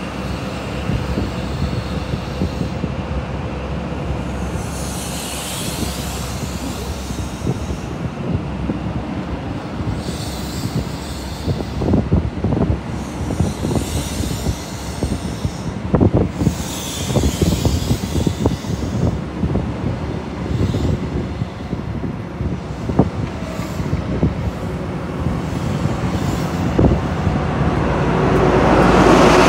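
An HST's Mark 3 Pullman coaches rolling past close by, their wheels knocking over rail joints with short bouts of high wheel squeal. Near the end the rear Class 43 power car's diesel engine grows louder as it draws level.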